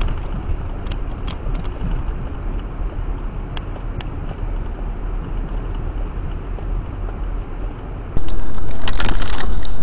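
A car driving, a steady low rumble of engine and tyres with scattered clicks. About eight seconds in, a much louder steady rushing noise cuts in abruptly.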